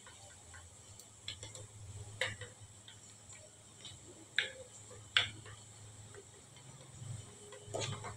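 Spoon stirring yogurt and spices in a small steel bowl, knocking and scraping against the metal in a few sharp taps, the loudest about two and five seconds in, with a faint steady hum underneath.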